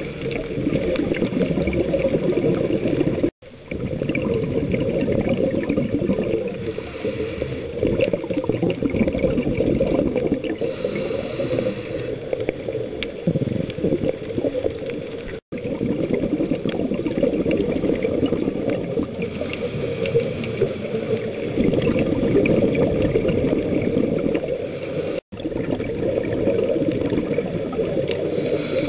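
Muffled underwater sound through a dive camera's housing: a steady low rumble with gurgling bubbles, typical of a scuba diver's regulator. It cuts out for an instant three times.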